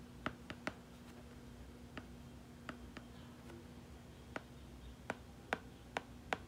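Stylus tapping and clicking on a tablet screen while handwriting: about a dozen short, sharp, irregular taps, coming faster in the second half.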